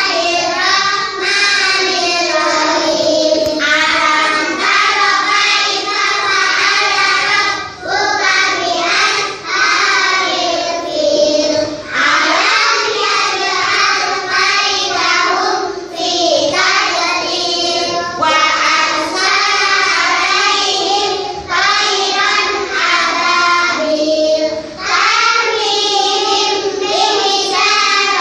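A class of young children reciting Quranic verses together in unison, in a sing-song chant, phrase after phrase with short pauses for breath.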